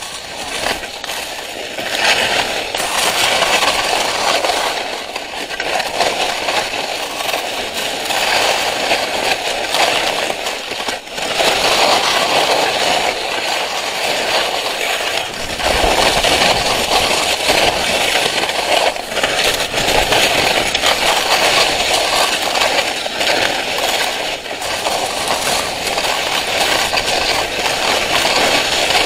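Skis sliding and scraping over snow, a loud hiss that swells and eases with each turn.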